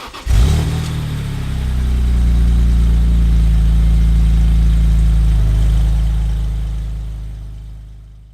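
BMW E46 M3's S54 straight-six engine starting abruptly and settling into a steady, deep idle, then fading away near the end.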